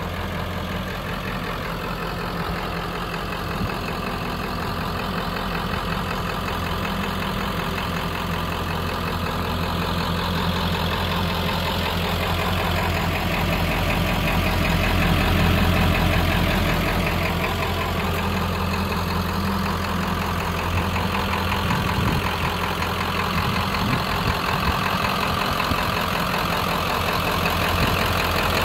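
1996 Ford F-250's 7.3-litre Power Stroke turbo-diesel V8 idling steadily, growing a little louder midway.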